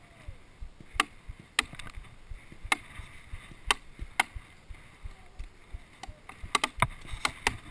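Paintball markers firing scattered single shots: sharp pops about one a second, coming quicker near the end.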